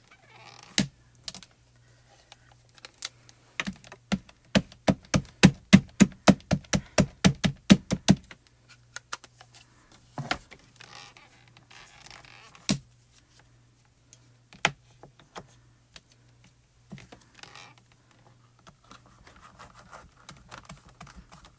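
Quick run of light taps, about four a second for around four seconds, with single clicks and knocks before and after: an ink pad dabbed onto rubber stamps in a MISTI stamp positioner, and the positioner's door pressed down to stamp.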